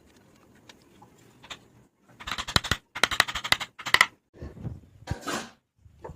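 Quiet at first, then from about two seconds in several quick runs of sharp clicks and knocks: hard pieces clattering and tapping.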